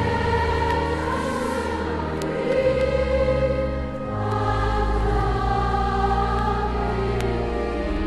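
Background choral music: a choir singing slow, held chords over sustained low notes, the chord changing every couple of seconds.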